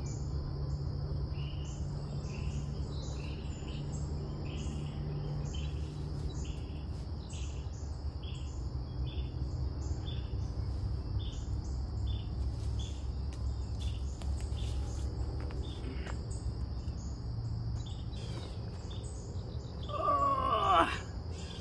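Woodland ambience: a steady high insect drone and regular short chirps from insects and birds, over a steady low rumble from a distant aircraft, which the camper takes for a helicopter flying around nearby. A short voice-like sound near the end.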